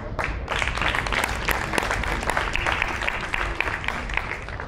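Audience applauding: a few scattered claps, then steady clapping that thins out near the end.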